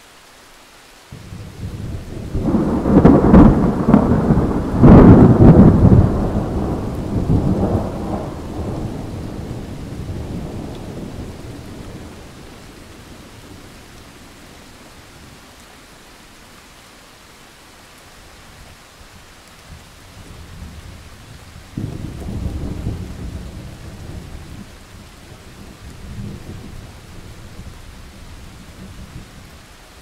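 Thunder over steady rain. A loud thunderclap breaks about a second in and rumbles for several seconds before slowly dying away, and a second, quieter peal of thunder rolls in a little past the twenty-second mark.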